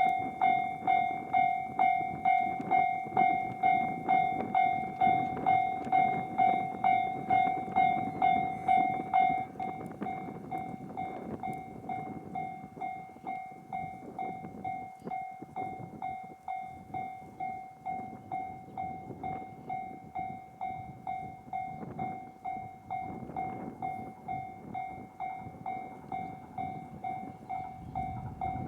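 Japanese level-crossing warning bell dinging at a steady pace of about two strokes a second, becoming clearly quieter about nine seconds in. A train's running noise lies beneath it.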